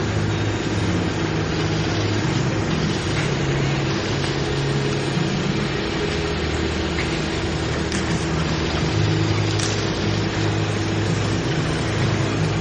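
An engine running steadily, its low drone shifting in pitch every few seconds, over a constant noisy hiss.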